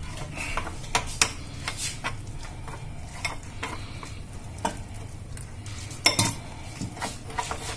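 A fork stirring and scraping gram-flour batter in a glass bowl, with irregular clinks of the metal against the glass. A louder clink comes about six seconds in.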